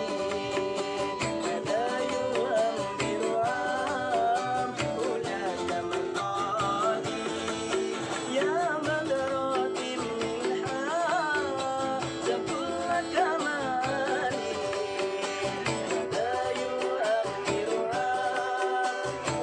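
Live song: a voice singing with wavering, ornamented runs over plucked-string accompaniment and a steady beat.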